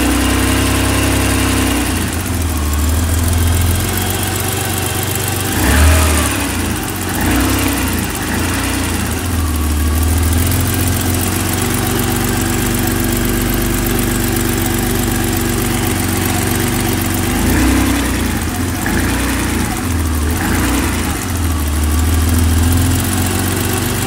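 BMW M20 inline-six engine idling steadily, with the valve-train ticking heard just after a valve adjustment, which the owner is unsure is normal.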